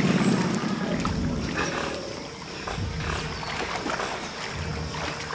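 Giant otters fighting a caiman in shallow water: growling and snarling with water splashing, loudest in the first second.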